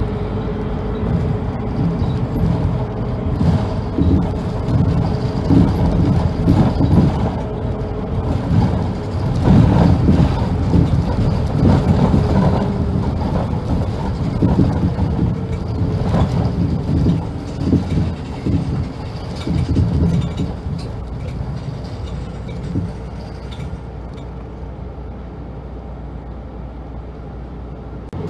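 Running noise of a Kanto Railway route bus heard from inside the cabin: engine and road rumble with irregular knocks and rattles and a faint steady whine. It eases quieter near the end.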